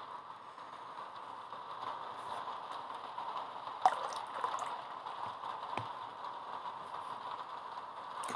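Steady faint hiss with a sharp click about four seconds in and a smaller click near six seconds.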